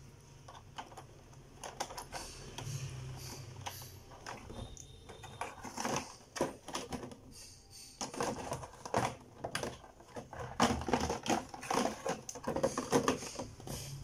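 Hard plastic of a Beyblade stadium clicking and knocking as its clear plastic cover is handled and fitted onto the white stadium base. Irregular taps, getting busier and louder about halfway through.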